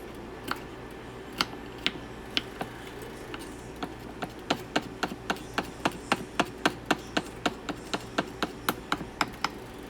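Knife chopping garlic on a cutting board, mincing it. It starts with a few slow, separate taps, then settles into a steady run of about three sharp taps a second that stops shortly before the end.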